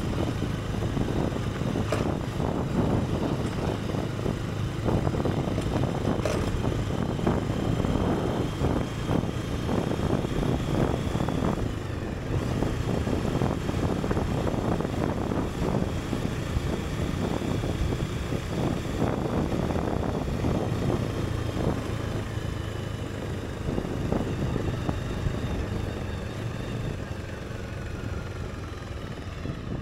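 Motorcycle engine running steadily, with a continuous low mechanical noise.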